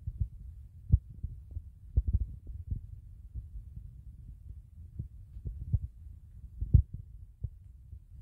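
Muffled, irregular low thumps over a low rumble: handling noise from a phone held in the hand and carried while walking through rooms.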